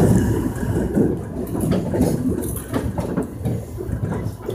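Korail Line 1 resistance-controlled electric train running on the rails: a steady low rumble with scattered clicks from the wheels.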